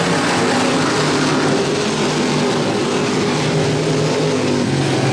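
Several dirt-track stock cars racing together, their engines running hard with overlapping engine notes that shift up and down in pitch as the cars go through the turns.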